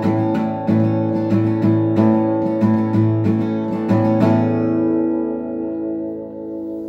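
Acoustic guitar strummed in a steady rhythm, about three strokes a second, ending about four seconds in on a final chord that rings out and slowly fades.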